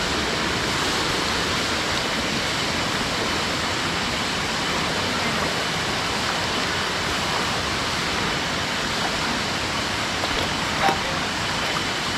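Waterfall water rushing, a steady, unbroken hiss of falling and splashing water.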